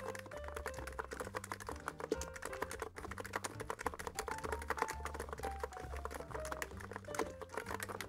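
Continuous typing on a NiZ X99 Pro keyboard with silenced electrostatic capacitive (EC) switches: a dense, irregular stream of keystroke clicks, with background music underneath.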